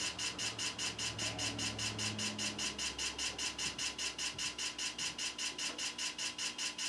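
Old desktop PC ticking rapidly and evenly, about seven ticks a second, over a low hum that stops about three seconds in. The machine sounds nasty, a sign of a mechanical fault inside it.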